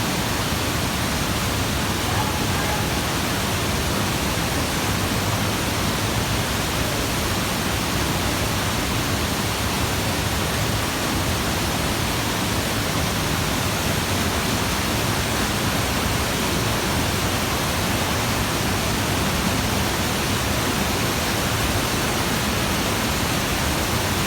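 Waterfall: water falling and crashing, a steady, unbroken rushing noise.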